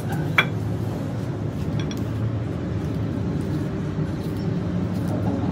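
A sulcata tortoise biting and chewing vegetables, with a few sharp crunches and clicks over a steady low rumble.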